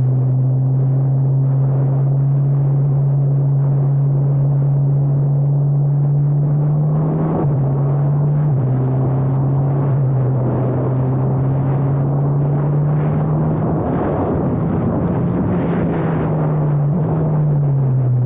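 Formula Abarth single-seater's turbocharged 1.4-litre four-cylinder engine running at steady revs. Its note holds level, steps up briefly a little after seven seconds, turns rougher around fourteen seconds, and drops in pitch near the end.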